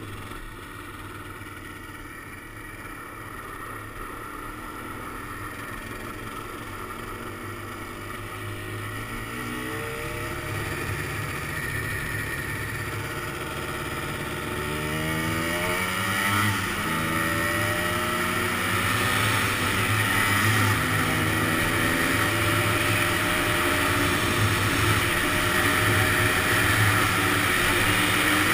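Honda ATC250R three-wheeler's two-stroke single-cylinder engine running under way across lake ice, revving up in several rising sweeps about halfway through and growing steadily louder, with a hiss that builds along with it.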